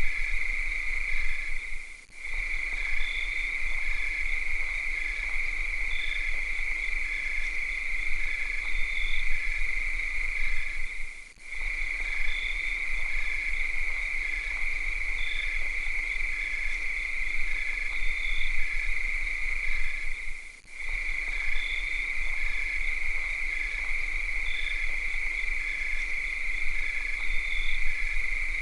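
A chorus of cicadas on a summer night: a steady, high-pitched shrill drone with a fainter, regular pulsing chirp layered over it. The drone dips out briefly three times, about nine seconds apart.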